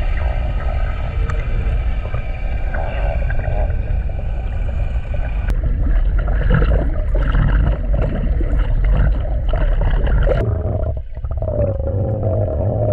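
Underwater sound picked up by a submerged camera: a heavy low rumble of moving water with several faint steady whining tones above it. The sound changes abruptly twice.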